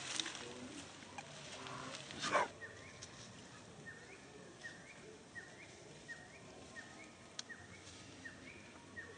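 Dry leaf litter rustling under a newborn macaque, then one short loud monkey cry falling in pitch about two seconds in. After it, a faint short chirp repeats evenly, a little more than once a second.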